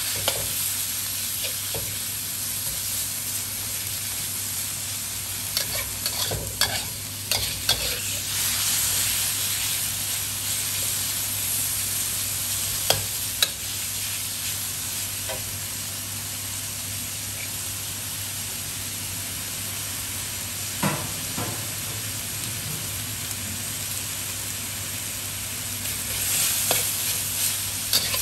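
Sliced pork belly sizzling in a hot wok, stirred with a metal spatula that scrapes and clicks against the pan now and then. The sizzle grows a little louder near the end.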